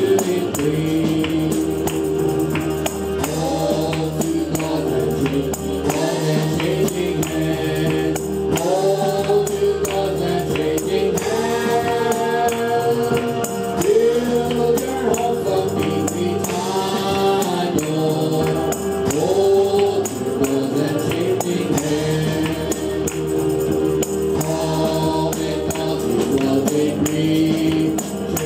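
Gospel praise-and-worship singing: a man leads the song into a microphone, with other voices joining over sustained instrumental chords and a steady shaken-percussion rhythm.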